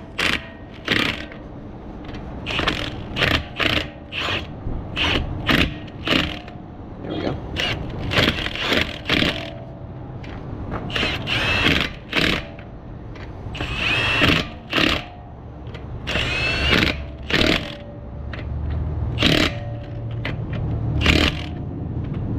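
Milwaukee cordless impact wrench running lug nuts onto a car wheel in many short bursts, several with a rising motor whine, snugging the nuts down on a spare tire.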